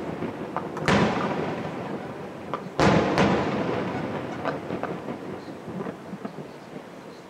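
Aerial firework shells bursting: a loud bang about a second in, then two bangs close together near three seconds, each followed by a long rolling echo that slowly fades. A few fainter pops and crackles follow in the second half.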